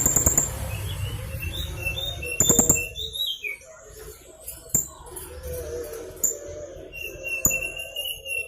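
Blue-crowned hanging parrot (serindit) calling: thin high chirps and short rapid trills mixed with short whistled notes, some falling in pitch. A low rumble sits under the first three seconds, and a few sharp clicks come later.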